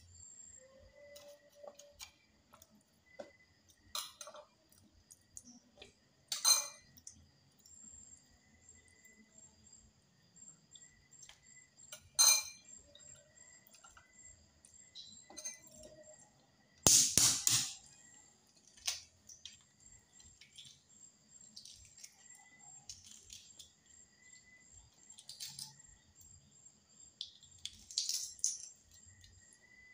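Tableside eating sounds: a spoon clinking against a glass bowl and a balut duck egg being tapped and its shell peeled. They come as scattered clicks and taps, with a louder cluster of knocks a little past halfway.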